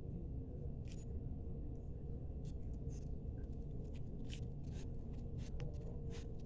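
Hands rubbing facial cleanser over the skin: faint, short scratchy swishes at irregular intervals over a steady low background noise.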